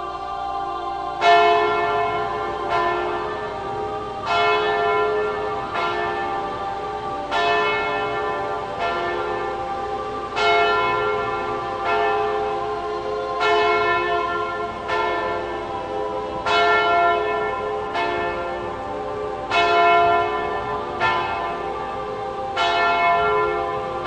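A church bell tolling, struck about every one and a half seconds, each stroke ringing on into the next. The tolling begins about a second in.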